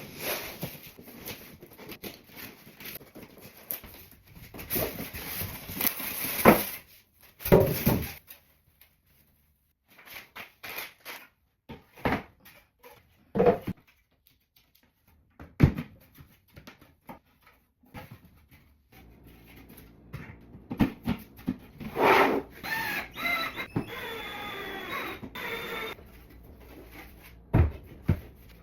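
Dining table being assembled by hand: irregular knocks, clicks and rustling as parts and packaging are handled, with short quiet pauses.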